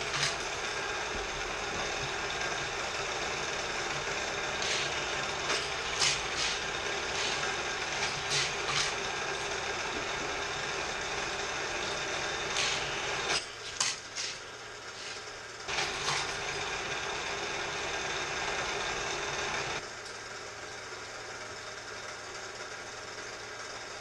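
Hot Wheels 2-Way Super-Charger booster running, its battery-powered motor whirring steadily, with sharp whacks as the die-cast Lola GT70 is flung through its spinning wheels on each lap. The whirring dips briefly past the middle and drops away about twenty seconds in.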